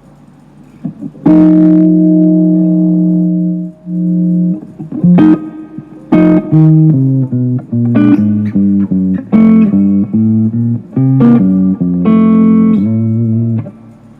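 Guitar played to try out its tone after a setup: a chord left ringing for about two and a half seconds, then a phrase of short picked notes and chords that stops shortly before the end.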